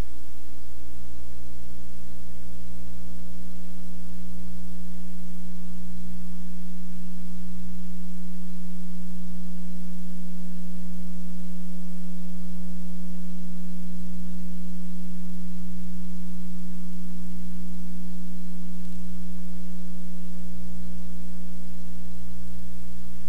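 Steady electrical hum: one strong low tone with fainter higher tones above it, no change in pitch or level.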